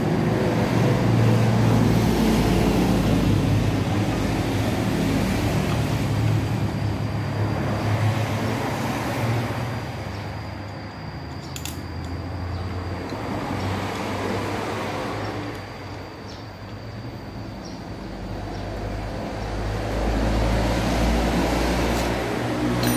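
Motor vehicle engines running nearby, fading in the middle and swelling again near the end, with one sharp click about eleven seconds in.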